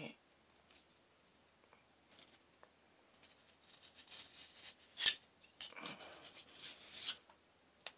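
Wire bore brush on a cleaning rod scrubbing back and forth inside a Glock 17 barrel: scattered faint scraping strokes, a sharp click about five seconds in, then a denser run of scraping for a second or so.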